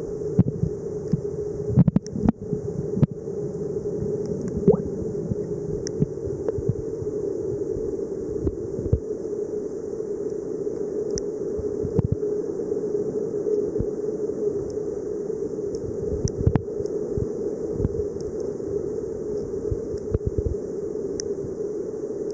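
Underwater ambience heard through a camera housing: a steady low hum with scattered sharp clicks, a cluster of them about two to three seconds in.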